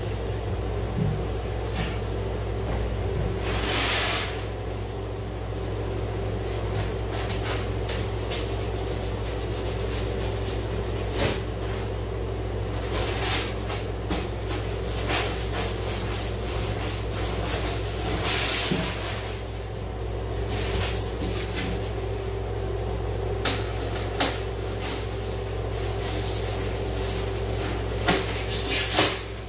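A large white wall panel being handled and fitted against the wooden studs of a box truck wall: rubbing and scraping of the panel and several light knocks, over a steady low hum.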